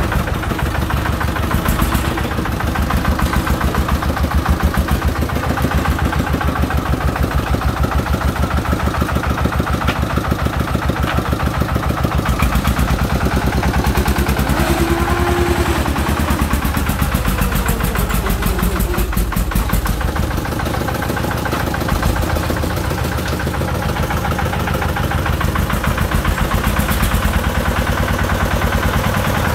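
Single-cylinder diesel engine of a công nông farm truck running with a steady, rapid chugging.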